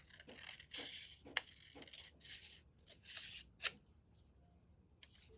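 Scissors cutting paper in a series of short snips with paper rustling, and two sharp clicks about one and a half and three and a half seconds in.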